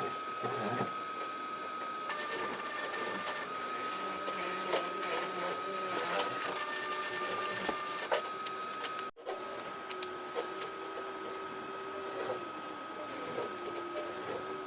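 Electric welding arc crackling steadily as cattle-panel wire is welded to the greenhouse frame, with a couple of short breaks in the arc.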